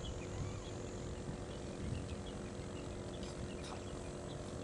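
Outdoor waterside ambience: a steady low rumble with a constant low hum, and faint high chirps scattered through it.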